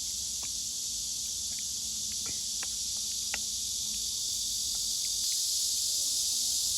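Steady high-pitched chorus of insects chirring, with a few faint light clicks in the first half.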